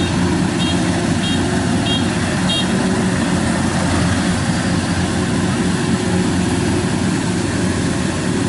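Kubota DC-93 rice combine harvester's diesel engine running steadily under load as it cuts rice. A short high beep repeats about every two-thirds of a second during the first two and a half seconds.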